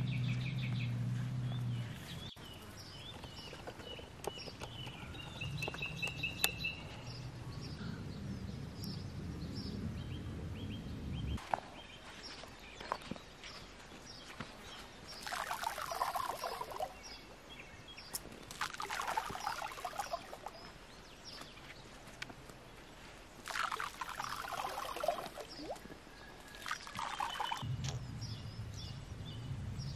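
Outdoor ambience with small birds chirping. A low hum runs in the first couple of seconds and again later, and four short rushing, sloshing noises come a few seconds apart in the second half.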